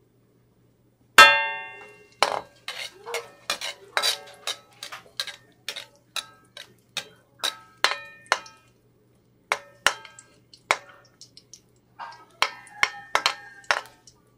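Metal ladle knocking and scraping against a thin metal wok while stirring garlic in a little oil. Each hit leaves a short metallic ring. The loudest clang comes about a second in, followed by a long irregular run of taps and scrapes.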